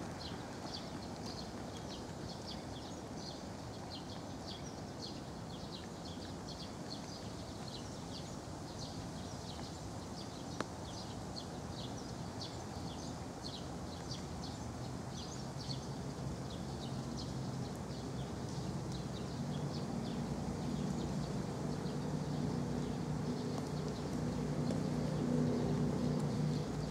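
Small birds chirping over and over at a quick, fairly even pace, thinning out after about halfway. A low steady hum builds under them in the second half and is loudest near the end, with a single sharp click about ten seconds in.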